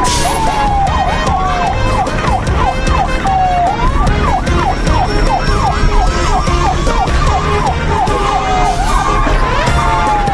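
A siren wailing, its pitch switching between fast up-and-down yelps and long falling sweeps, over background music with a steady low beat.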